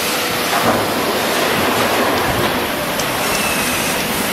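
Steady, loud rushing noise of factory machinery running, with a few faint knocks.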